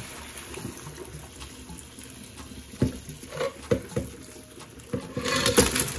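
Hot crab-boil water poured from a pot into a stainless steel colander, splashing and draining through the holes, with a few knocks partway through and a louder rush near the end.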